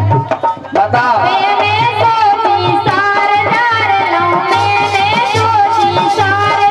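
A woman singing a Bundeli folk song in a high voice, with harmonium accompaniment and a steady hand-drum beat.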